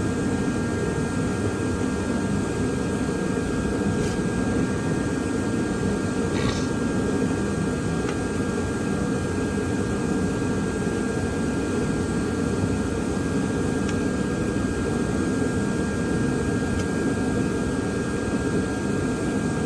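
Steady machine drone with a rush of air, like a fan or blower running, holding level throughout, with a faint thin whine on top and a couple of light clicks from small parts being handled.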